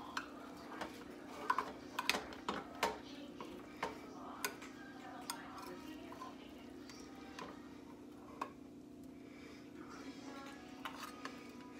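Metal serving spatula clicking and scraping against a glass baking dish as it cuts through and lifts out a portion of casserole with a cracker-crumb topping. The clicks come thick in the first half and thin out later.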